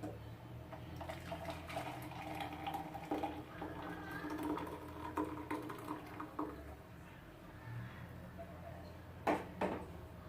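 Liquid being poured and splashing, likely the hot kashaya decoction going into a vessel, with small clinks of kitchen vessels. Two sharp knocks of utensils come a little after nine seconds.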